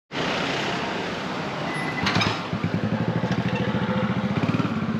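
Street traffic noise that starts abruptly, with a motorcycle engine running close by, its low, rapid pulsing steady through the second half.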